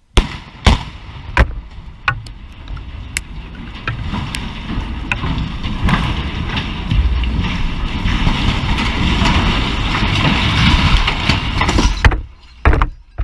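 Explosive cutting charges firing on a steel water tower's legs: four sharp blasts in the first two seconds. Then a long, building din as the steel tower falls and crashes down amid flying debris, cutting off abruptly about twelve seconds in, with a few more sharp bangs near the end.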